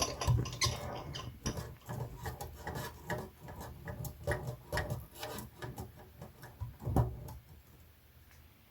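Irregular light clicks and taps with some rubbing, the loudest knock about seven seconds in, then thinning out to quiet.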